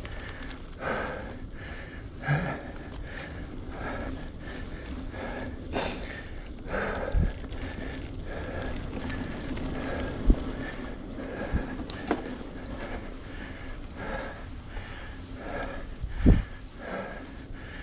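Mountain-bike rider breathing hard from effort, a breath about every second, over steady riding noise. A few sharp low thumps come through, about a third of the way in, near the middle and near the end.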